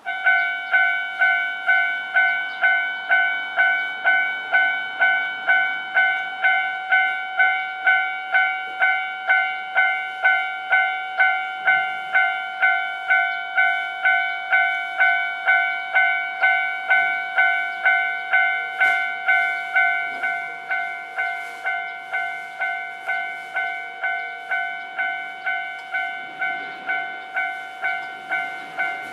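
Japanese railway level-crossing electronic warning bell ringing steadily, a repeating 'kan-kan' of about two strikes a second. It drops to a quieter level about two-thirds of the way through.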